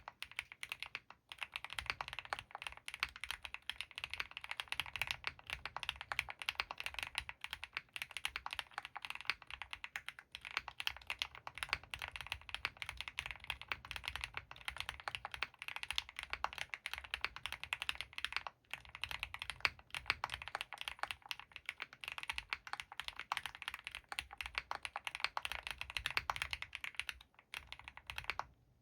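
Continuous fast typing on a custom mechanical keyboard with Krytox-lubed Gateron CJ linear switches, a polycarbonate plate and GMK keycaps: dense, rapid keystroke clacks with a few brief pauses, stopping just before the end.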